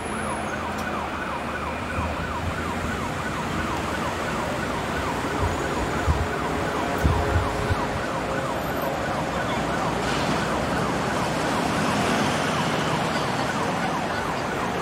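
Emergency-vehicle siren in a fast yelp: a rapid rising-and-falling wail, about four cycles a second, held steadily throughout, with a few low thuds about halfway through.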